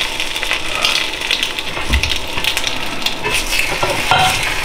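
Eggs sizzling as they fry in a nonstick frying pan, with a plastic spatula scraping and clicking against the pan as it is worked under an egg to flip it.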